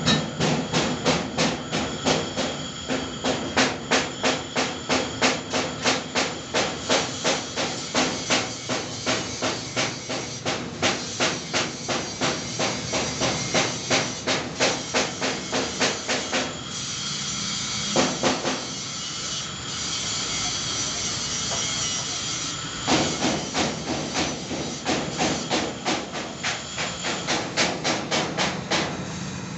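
Metal being hammered in quick, regular blows, about two to three a second. About two-thirds of the way through the blows give way to several seconds of steady hissing, then start again.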